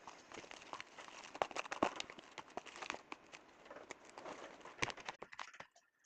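Clay slime being mixed: a dense run of small wet, sticky clicks and crackles, dying away just before the end.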